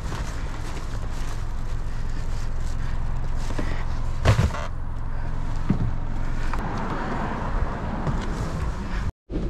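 Plastic storage bins being loaded into a car over a steady low rumble: a loud thump about four seconds in as a bin is set down, a lighter knock a second or so later, and rustling handling noise.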